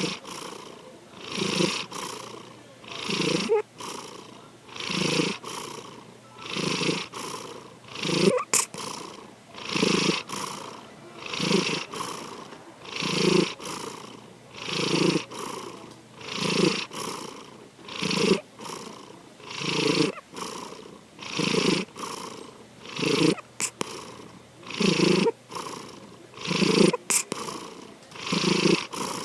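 Domestic cat snoring in its sleep, one breath about every second and a half to two seconds, evenly through. Mixed in is a cooing note that the owner likens to a pigeon's voice.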